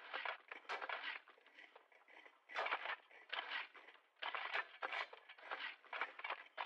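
Shovels digging, a run of short scraping, crunching strokes into the ground at an uneven pace of roughly two a second, with a brief lull about a second and a half in.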